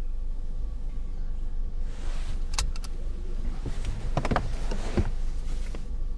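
Steady low rumble of a car's cabin, with a run of clothing rustles and short breathy, sob-like sounds in the middle as two people hug in the back seat.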